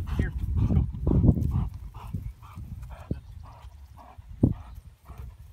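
A wet chocolate Labrador retriever, just out of the water with a duck in its mouth, breathing hard in short rhythmic huffs, about two a second, after a retrieve. Wind rumbles on the microphone for the first second or so, and two sharp knocks come in the second half.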